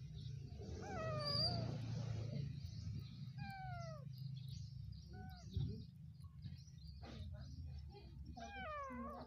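A small kitten meowing repeatedly, thin cries that mostly fall in pitch, with a burst of several quick cries near the end, while a young macaque holds it down. A low steady hum runs underneath.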